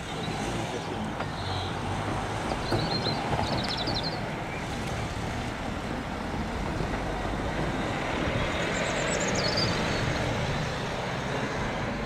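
Steady vehicle engine rumble, with a bird chirping briefly twice.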